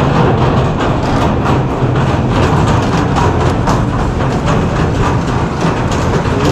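Steady wind rush on an action camera's microphone while riding a VSETT 11+ electric scooter, with rapid, irregular rattling clicks from the scooter running over a rough surface.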